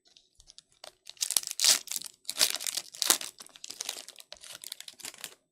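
Plastic wrapper of a trading card pack crinkling as it is torn open and pulled off, in a string of rustling bursts starting about a second in.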